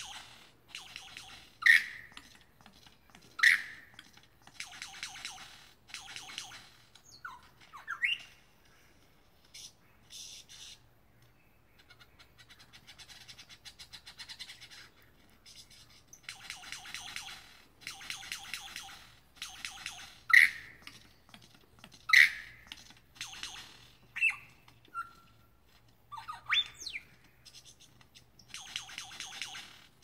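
A male lyrebird singing during its tail-raised display: repeated rattling passages about a second long, with four loud, sharp call notes, the loudest sounds, and a few quick rising notes between.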